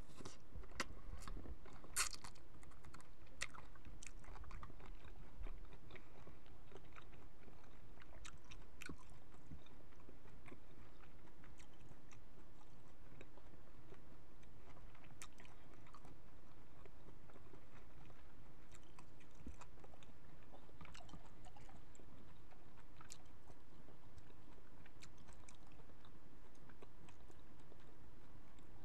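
Close-up chewing of cooked shrimp, with wet mouth clicks that are busiest in the first few seconds and then thin out to occasional clicks. Near the end comes soft crackling as a shrimp's shell is peeled off by hand.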